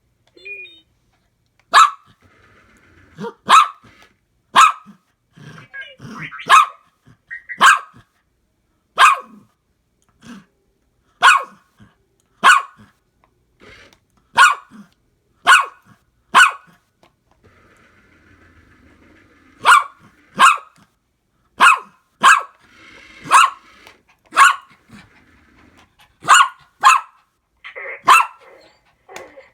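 Dog barking repeatedly: about twenty single sharp barks, roughly one a second, with a pause of a few seconds about midway.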